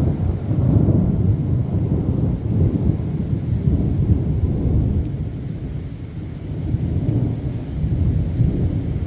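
Rolling thunder: a long low rumble that swells, eases off around the middle, then swells again near the end, with rain falling underneath.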